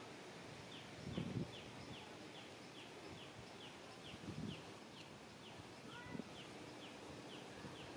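A high chirping call repeated steadily, each chirp short and falling, about two or three a second. Two louder low rustling bumps come about a second in and again about halfway through.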